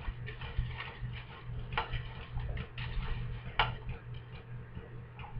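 A spoon scraping and clicking in a frying pan while scooping crumbled tofu onto a tortilla: irregular light clicks and scrapes, two sharper ones about two and three and a half seconds in, over a steady low hum.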